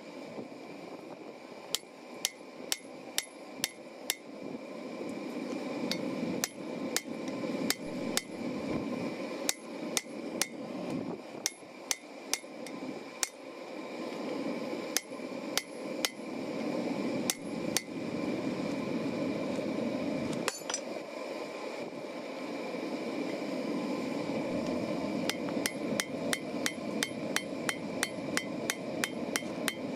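Hand hammer forging hot steel on an anvil, blow after blow with a bright metallic ring. The blows come in runs with short pauses, quickening near the end to about three a second.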